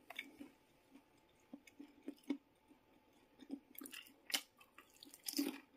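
Faint chewing of a dumpling close to the microphone: scattered soft clicks and crunches, with a small cluster near the end.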